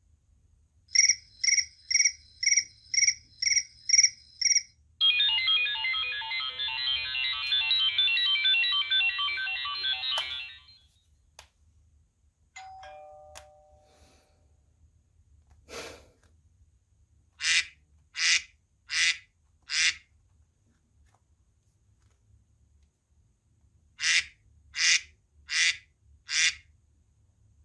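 iPhone ringtones and alert tones played one after another: eight quick high beeps, then about five seconds of a dense, fast run of bright notes, a few faint short tones, and two sets of four short chirps.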